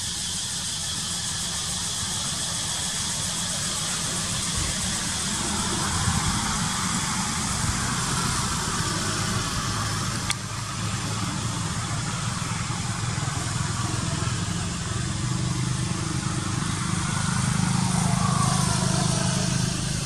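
Steady outdoor background noise with a low rumble underneath.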